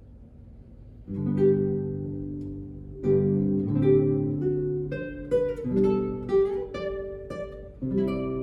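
Classical guitar playing slow, ringing plucked chords and single notes, starting about a second in, the notes coming faster toward the end.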